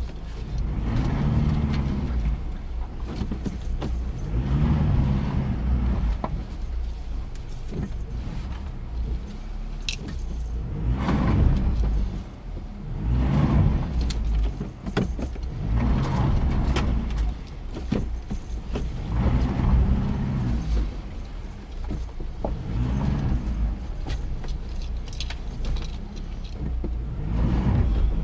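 Ford Ranger's engine heard from inside the cab, revved in repeated surges about every two seconds while the pickup is stuck in mud with its tyres spinning for lack of grip. Keys hanging from the ignition jangle along with it.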